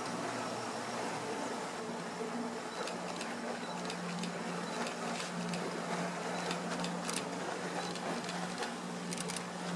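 A boat's motor running at a steady low hum, with the rush of water and wind over it and a few short clicks from a few seconds in.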